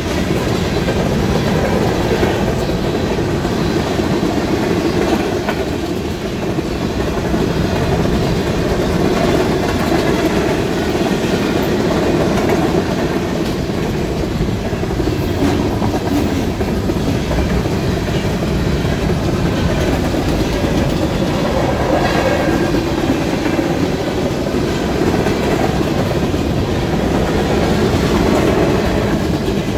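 A freight train of tank cars and covered hopper cars rolling steadily past, its wheels running loudly on the rails.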